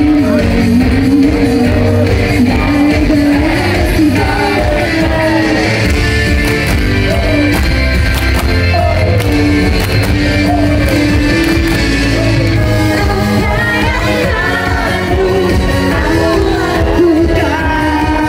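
Female vocalists singing into microphones over loud pop-rock music, with continuous accompaniment throughout.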